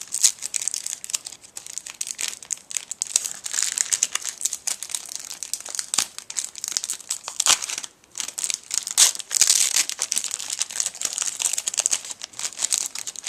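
Plastic packaging of a trading card pack crinkling and tearing as it is handled and opened by hand. It is a dense run of small crackles that pauses briefly about eight seconds in.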